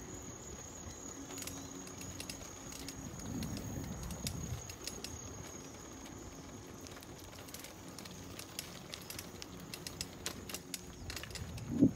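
Bicycle ridden along a paved path, rattling and clicking irregularly, with a steady high-pitched whine underneath and one sharp thump near the end.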